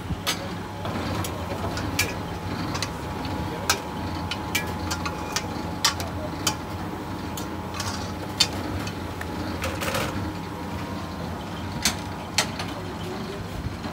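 Irregular sharp metal clinks and clanks as rotisserie chickens are worked off steel spits with tongs onto a metal tray, over a steady low hum.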